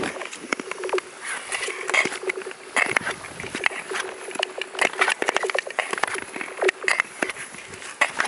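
Ice skates striking and gliding on thin clear lake ice. The ice answers with a dense, irregular run of sharp clicks and short ringing tones, the sound of thin ice "singing" under the skaters.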